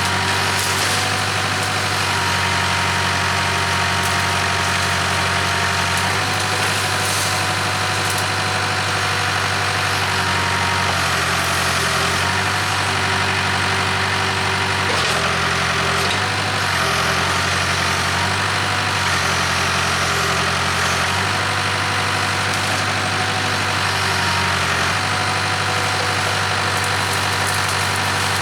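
Case 580K backhoe's diesel engine running steadily, its note dropping and rising again several times as the machine works.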